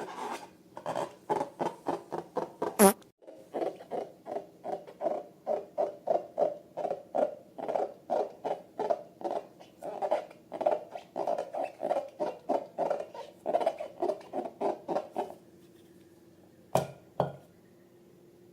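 Slime being squished by hand in a steady rhythm, about two and a half squelching strokes a second, which stop about fifteen seconds in. A sharp snap comes about three seconds in, and two clicks near the end.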